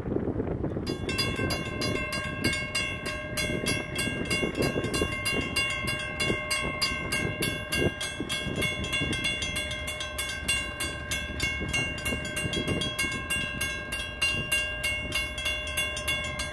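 Railroad crossing's WCH mechanical bells start ringing about a second in, a rapid, even run of strikes that keeps going steadily while the warning lights flash and the gates lower for an approaching train.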